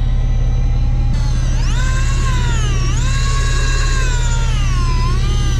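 Electric fishing reel's motor whining as it winds, its pitch rising about a second in and then gliding up and down with the motor speed, over the steady low drone of the boat's engine.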